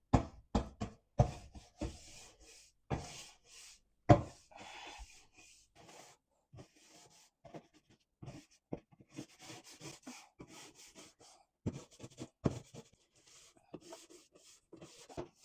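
Scrubby pad smearing a thick baking soda paste over the inside of an oven: irregular rubbing and scraping strokes, with a few sharper knocks, the loudest about four seconds in.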